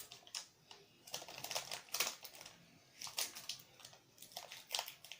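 Instax mini film pack's wrapper being torn open and handled: irregular crackling and rustling of the packaging in short clusters.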